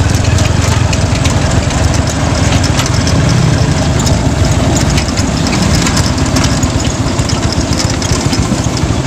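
Engine of the passenger vehicle running, heard from aboard: a steady low rumble with rapid ticking.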